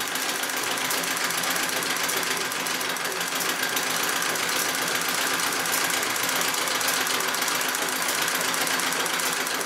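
Singer 66 treadle sewing machine stitching steadily, foot-powered with no motor: a rapid, even run of needle strokes during free-motion quilting.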